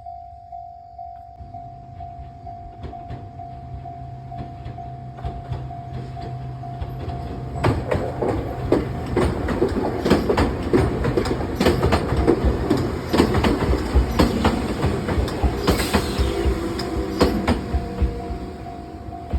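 Level crossing bell ringing steadily in repeated tones as an Enoshima Electric Railway (Enoden) train approaches and passes over the crossing. The train's low hum builds from a couple of seconds in, then its wheels clatter over the crossing and rail joints from about eight seconds in for some ten seconds, drowning out the bell, which is heard again near the end.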